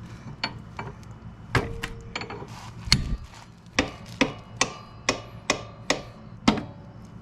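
Hammer blows on a dirt bike's lower rear suspension link, driving it into line with its mounting hole: a few scattered strikes, then steady taps about two to three a second from about four seconds in, some leaving a short metallic ring.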